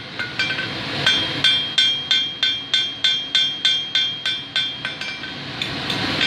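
Blacksmith's hand hammer striking hot 8 mm round steel bar on an anvil, about three blows a second, each with a clear anvil ring, flattening the end of the bar ready for a scroll. The blows pause briefly about half a second in and stop near the end.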